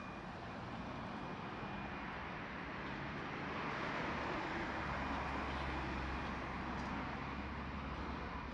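Roadside traffic: a vehicle goes by with a rising and fading rush of tyre and road noise, and a deep, steady engine rumble sets in just before halfway.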